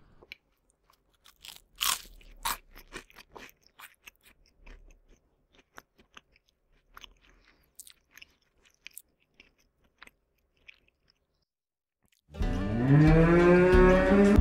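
Syrian hamster gnawing and chewing a green stalk: a run of small, crisp crunching clicks at an uneven pace, loudest about two seconds in. Music starts loudly near the end.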